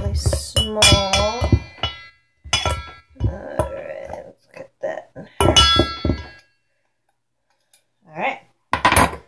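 Metal utensils clinking and scraping against a stainless steel pot while cutting butter into flour for pie crust: bursts of sharp clinks with a ringing metal tone, in the first two seconds and again around three and six seconds in.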